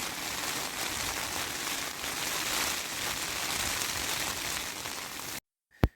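Heavy rain falling on a tent, a steady even hiss that cuts off suddenly about five and a half seconds in, followed by a single short sharp click.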